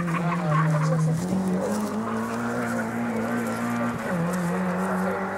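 Engine of a Lada Zhiguli rally car running hard as it climbs the course, a steady note that steps up in pitch about a second in and again a little later, then drops back near four seconds in.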